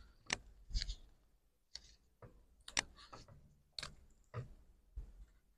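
Faint, irregular clicks and short scratchy strokes of a marker pen writing on a cut PVC window profile, with a few soft knocks from handling the profile.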